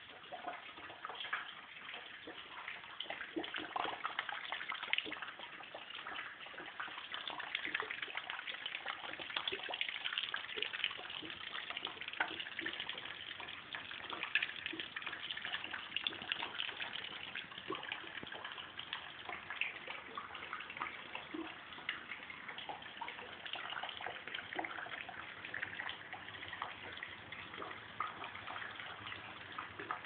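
Leaking water pouring in a thin stream into a metal pot, a steady splashing with many small plinks: water coming through into the living room.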